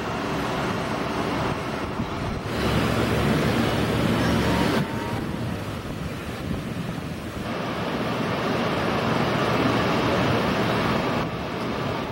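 Wind buffeting the camcorder microphone: a steady rushing noise with a heavier gust from about two and a half seconds in that cuts off suddenly near five seconds, and another swell later on.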